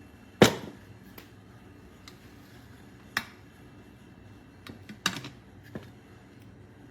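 A handful of sharp knocks and clicks, like objects being set down and handled. The loudest is about half a second in, one comes at about three seconds, and a quick cluster plus one more follow around five to six seconds.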